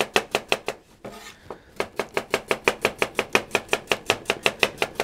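Kitchen knife slicing peeled raw potato very thin on a plastic cutting board: rapid, even knocks on the board, about seven a second, with a short pause about a second in.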